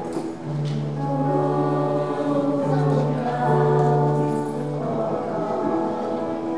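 Youth choir singing together in long held notes, with a strong low note held beneath them from about half a second in until about five seconds in.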